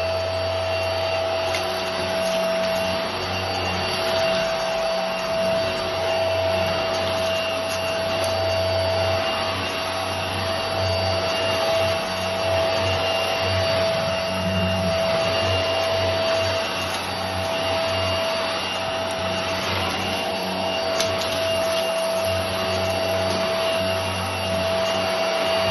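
Hart stick vacuum running steadily with a high whine as its head is pushed over a laminate floor, picking up crumbs and small debris.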